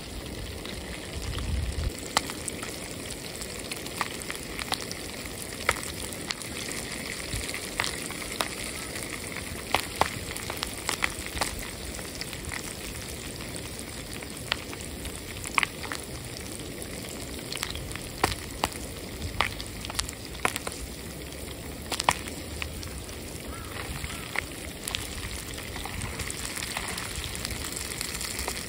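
Popcorn kernels popping in hot oil in a foil pan, the oil laced with juice from crushed wild grapes: a steady sizzle of frying broken by irregular sharp pops, about one a second.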